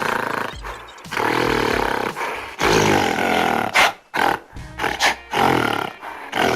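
Recorded African wild-animal sounds, roaring calls played one after another over background music.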